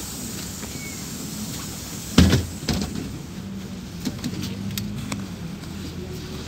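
Inside a LiAZ 5292.67 city bus, a loud thump about two seconds in is followed by a lighter knock half a second later, typical of the doors shutting at a stop. Then the engine hums low as the bus pulls away.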